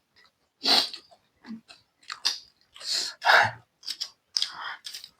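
Close-miked chewing and crunching of chatpate, a crunchy spicy puffed-rice snack, in a string of short separate bites and munches.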